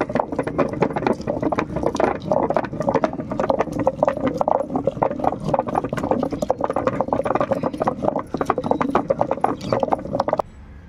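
Hand-turned granite grinding stone: the round stone pestle is worked round in the hollow of the stone base, crushing garlic cloves and peppercorns into a wet spice paste. It makes a dense, rapid run of stone-on-stone scraping and knocks that stops abruptly near the end.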